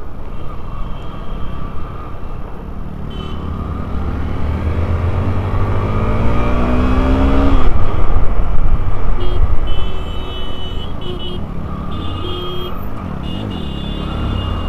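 Motorcycle engine pulling through the gears in traffic, its revs climbing for a few seconds and then dropping at a gear change, under heavy wind rush on the rider's microphone that is loudest about halfway through.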